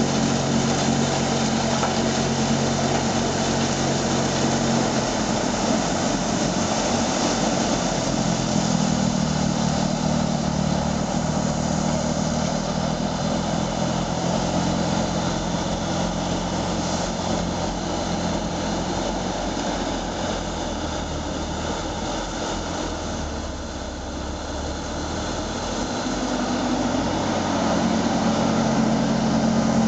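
Vohl VL-350 loader-mounted snow blower, driven by its own 350 hp John Deere diesel engine, running steadily while throwing snow, together with the Caterpillar 950E wheel loader's diesel engine that carries it. The engine note shifts a few seconds in and shifts back near the end, with a slight drop in loudness just before.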